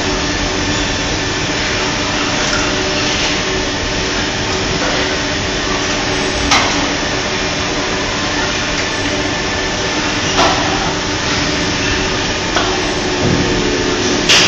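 Steady mechanical din of injection molding machines and a servo take-out robot running, with a constant hum underneath. About five sharp clacks from the machinery break through, spaced a few seconds apart.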